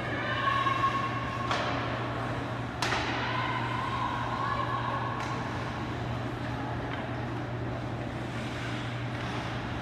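Live ice hockey play in an indoor rink: sharp knocks of sticks and puck against the boards, the strongest about a second and a half and three seconds in, over a steady low hum, with faint distant shouts.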